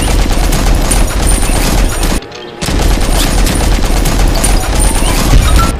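Sound effect of automatic machine-gun fire in two long bursts, with a brief break about two seconds in.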